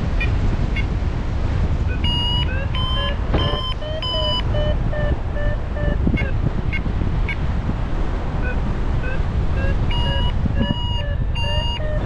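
Paragliding variometer beeping its climb tone: short pitched beeps several a second, with a faster, higher beeping about two seconds in and again near the end, the sign that the glider is climbing in lift. Heavy wind rumble on the microphone underneath.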